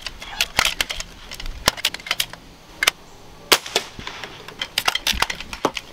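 Multi-pump air rifle firing a pellet: one sharp crack about three and a half seconds in, the loudest sound here. Lighter clicks and knocks come before and after it.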